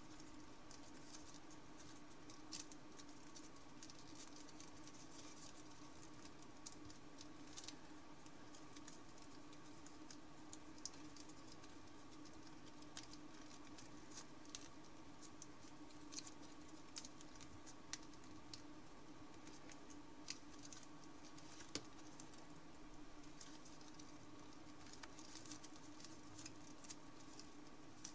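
Thin origami paper crinkling and rustling faintly as fingers fold and shape it, in scattered soft crackles. A steady faint hum runs underneath.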